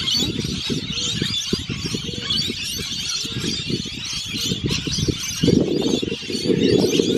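A flock of parrots chirping and chattering, over a low rumble of wind on the microphone that grows loud about five and a half seconds in.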